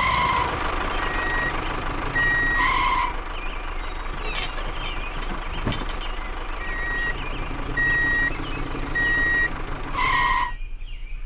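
Vehicle reversing alarm beeping at intervals over a steadily running engine, each beep about half a second long. Three louder short blasts come near the start, a few seconds in and near the end.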